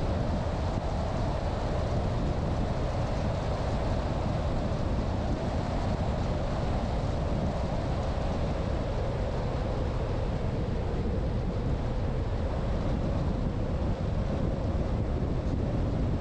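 A vehicle driving at a steady pace: continuous road and wind rumble with a faint hum that slowly falls a little in pitch.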